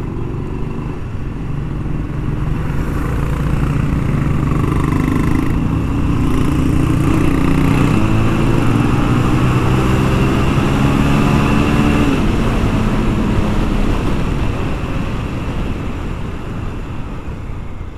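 Motorcycle engine heard from the rider's seat while riding. The engine note climbs as it pulls through the gears, with breaks at the shifts about six and twelve seconds in, then eases off near the end. Wind rushes over the microphone throughout.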